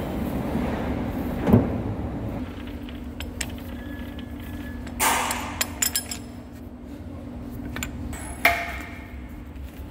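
Sharp metallic clanks and clicks as the jaws of a lathe steady rest are adjusted around a steel tube with a hand wrench: a knock about a second and a half in, a cluster of clicks around five seconds, and a ringing clank near the end. A steady low machine hum runs underneath.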